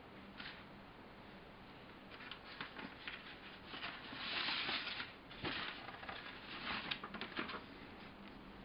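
Faint rustling and light clicks of plastic bags and paper being handled in a cardboard model-kit box, with a longer crinkle about four seconds in.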